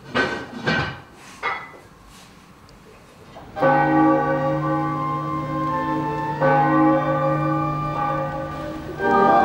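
A few knocks in the first second and a half, then cathedral bells ringing, starting suddenly about three and a half seconds in and struck again about three seconds later and once more near the end.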